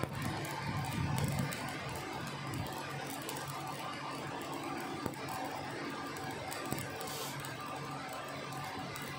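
Electric arc welding: the arc crackles and sizzles steadily as the bead is laid, with music playing underneath.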